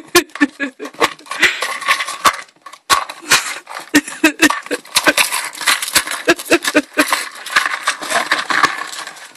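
Pet rats scrabbling in a wire cage and tearing into a cardboard toilet-paper roll stuffed with treats. A fast, irregular run of clicks and light metal clinks over rustling, crunching cardboard.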